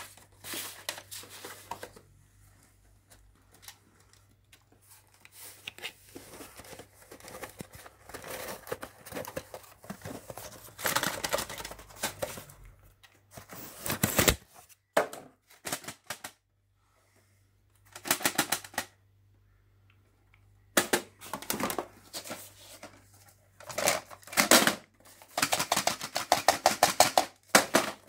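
Plastic VHS cassettes being handled and knocking together, in irregular bursts of clicks and rattles with short pauses between them. Near the end comes a run of fast, even clicking.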